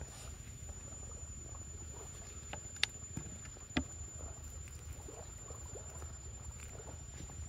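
Gloved hand scraping and brushing through loose sand, a soft grainy rustle, with two sharp clicks about three and four seconds in.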